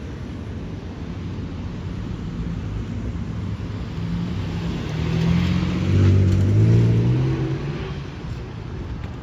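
A car's engine passing by: it grows louder to a peak about six seconds in, then fades, over a steady low rumble.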